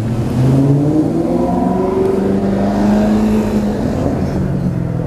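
Maserati GranCabrio's V8 accelerating away, its pitch rising over the first three seconds, then levelling off and easing slightly.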